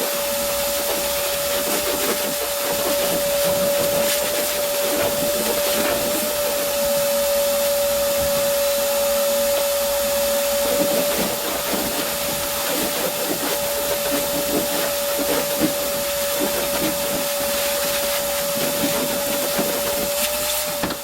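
Angle grinder with a flap disc running steadily over fresh welds on a pickup's steel bed, a constant motor whine over the hiss of grinding.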